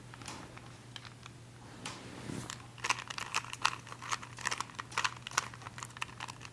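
Plastic Rubik's cube layers being turned quickly, a rapid run of clicks that starts about three seconds in.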